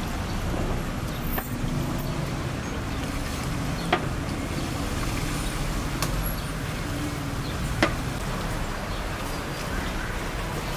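Steady street traffic from passing cars, with a few sharp metallic clinks, about four in all, as lamb trotters are washed and dropped into aluminium basins.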